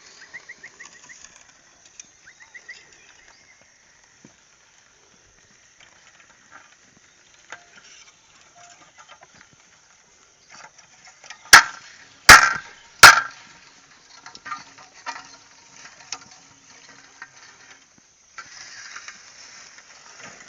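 Three loud, sharp cracks in quick succession, each under a second apart, a little past halfway. Faint bird chirps come in the first few seconds.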